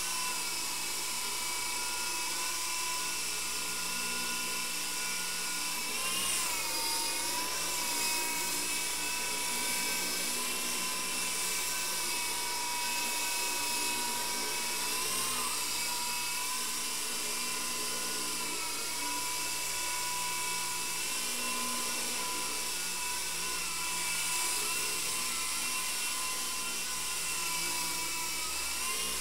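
FX017C mini RC helicopter in flight: a steady high whine from its small electric main and tail motors and rotors. The pitch wavers and dips several times as the throttle changes.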